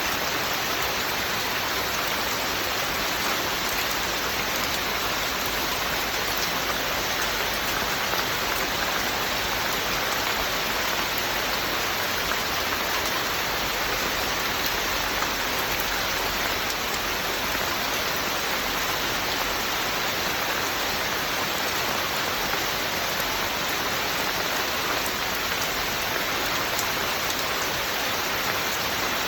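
Steady rain falling, an even hiss of many drops that never lets up or changes.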